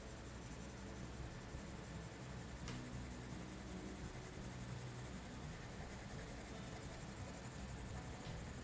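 Green coloured pencil scratching across drawing paper as it sketches, faint and steady.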